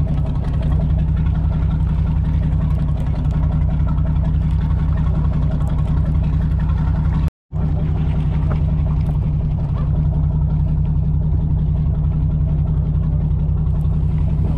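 A charter fishing boat's engine running with a steady low drone. The sound breaks off for a split second about seven seconds in.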